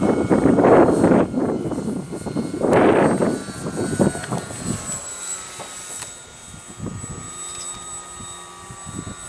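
Electric RC model warbird flying overhead, its motor and propeller giving a thin whine that drifts slowly lower in pitch. Gusts of wind buffet the microphone in the first second and again around three seconds in.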